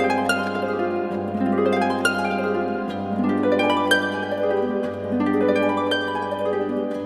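Harp playing: a steady run of plucked notes ringing over sustained low bass notes.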